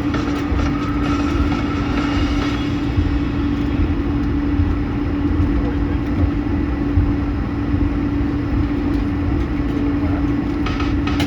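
Cabin noise inside an Airbus A220: a steady drone from its Pratt & Whitney geared turbofans, with a constant low hum over a deep rumble.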